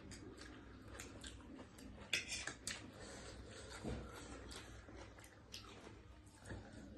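Quiet eating sounds: scattered small clicks and smacks of chewing and utensils on dishes, busier a little over two seconds in.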